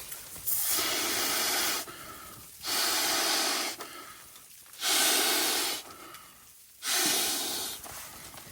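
Four long, forceful breaths blown out one after another, each about a second long: a person blowing up an inflatable sleeping pad by mouth.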